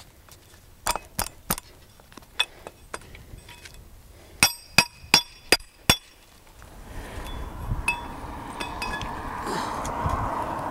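Steel cable-bracing hardware (bolt, plate and turnbuckle fittings) clinking and ringing as it is handled and fitted, with a few scattered clinks and then four louder ones in quick succession a little past halfway. A rushing noise builds over the last few seconds.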